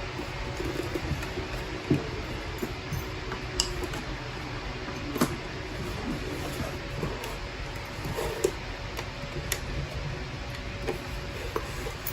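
Scattered light clicks and knocks from hands and tools working on car dashboard trim, a few seconds apart, over a steady fan-like hum.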